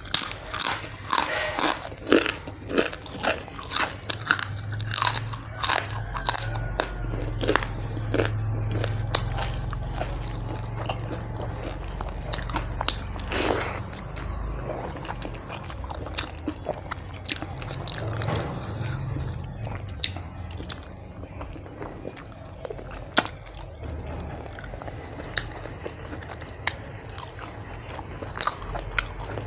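Close-up crunching as a crisp fried papad is bitten and chewed, many sharp crackles for the first several seconds, then quieter chewing of a mouthful of rice and fish curry with occasional crunches.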